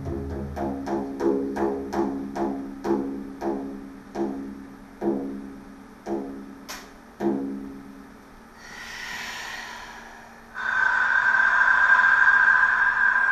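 Large hand frame drum struck with the hand, its deep ringing beats slowing down and spreading apart until they stop about seven seconds in. After a brief hiss, a steady high tone sets in about ten seconds in and holds, louder than the drum.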